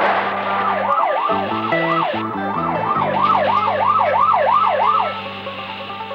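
Police car siren yelping: a fast wail that rises and falls about three times a second, starting about a second in and cutting off about five seconds in.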